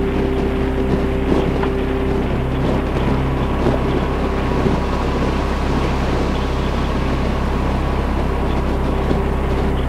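Harley-Davidson motorcycle's V-twin engine running steadily at highway cruising speed, its pitch holding constant, under a rush of wind noise on the microphone.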